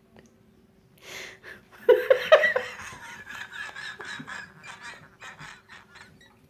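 A person's uncontrollable laughter. A loud burst comes about two seconds in, then a run of quick breathy laughing pulses, about four a second, that trails off.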